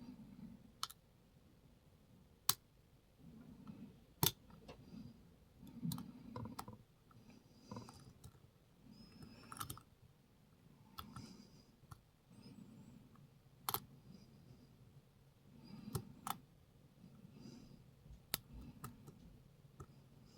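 Lock pick working the pins of a challenge pin-tumbler lock under tension. It makes soft scraping and tapping, broken by a dozen or so sharp, irregular clicks.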